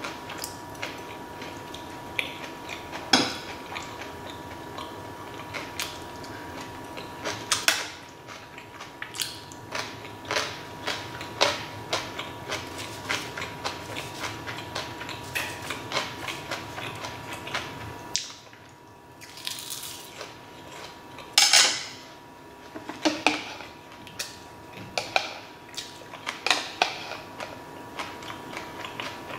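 Close-up eating sounds: chewing with a metal spoon and chopsticks clicking and scraping against stainless steel trays and bowls, in many short irregular clinks, the sharpest about three seconds in, about eight seconds in and near twenty-one seconds. A faint steady high tone runs underneath.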